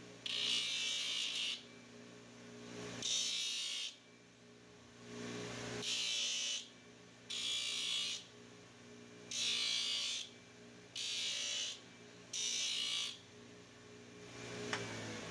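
Electric belt grinder running with a steady hum while a steel horseshoe is pressed against the abrasive belt in about seven short grinding passes, each a loud hiss lasting around a second. A sharp click comes near the end.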